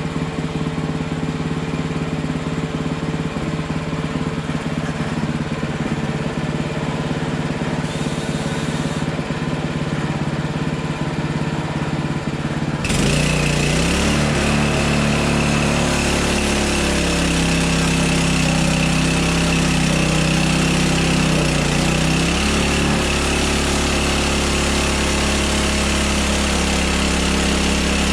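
Gas engine of a Hudson Hunter portable band sawmill running steadily. About halfway through, the sound suddenly gets louder, with a hiss and a high steady whine over the engine, as the band blade runs and cuts into the log under load.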